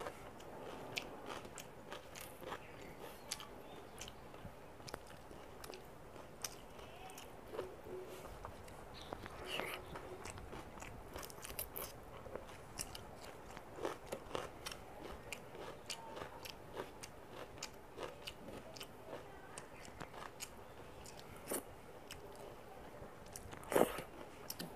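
Close-miked eating by hand: fingers mixing rice and dal on a metal plate and mouth chewing, heard as scattered small clicks and smacks, with one louder click near the end.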